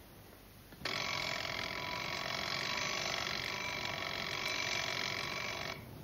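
Alarm clock bell ringing steadily for about five seconds, starting suddenly about a second in and cutting off abruptly near the end.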